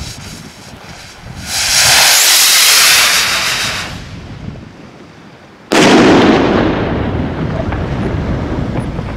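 Zink Bombenrakete 910 F4 firework rocket: a loud rushing hiss of the rocket motor as it climbs, lasting about two and a half seconds and fading out, then a single loud bang as the shell bursts, followed by a long rumbling echo.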